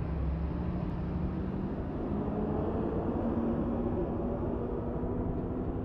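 Road traffic on a mountain highway. A vehicle engine runs steadily, its pitch slowly rising from about two seconds in, over a constant low rumble.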